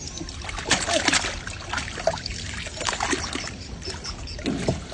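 Water splashing and trickling, with scattered irregular knocks and clatter.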